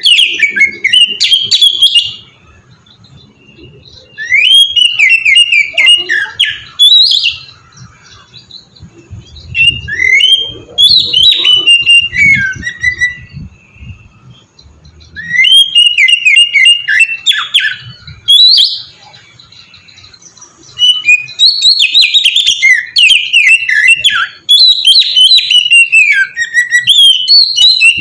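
Oriental magpie-robin (kacer) singing loud, open song in bouts of a few seconds, each a fast run of varied chirps and whistled notes, separated by pauses of about two seconds; five bouts in all.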